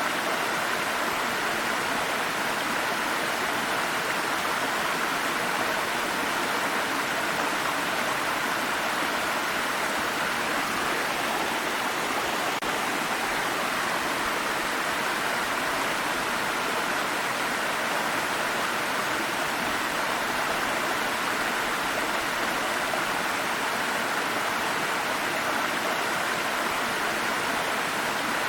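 Small forest stream rushing steadily over rocks, an even hiss of flowing water strongest in the upper middle range.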